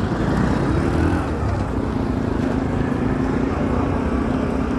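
Steady rumble of wind on the microphone mixed with street traffic noise while riding a bike, with a faint steady engine-like hum in the second half.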